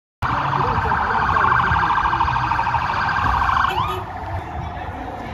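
Police escort siren sounding a fast, pulsing yelp, which breaks into a quick rising sweep a little before four seconds in and then carries on weaker and steadier.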